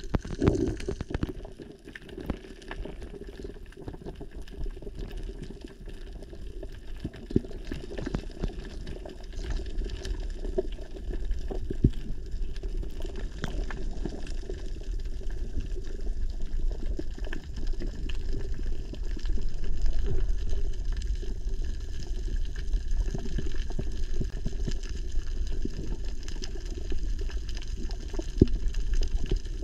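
Muffled underwater noise picked up by a camera below the surface while a spearfisher swims: a steady rushing water sound with scattered sharp clicks, growing louder partway through.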